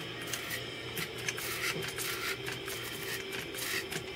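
Faint, irregular small clicks and rustles of handling, over a low steady hum.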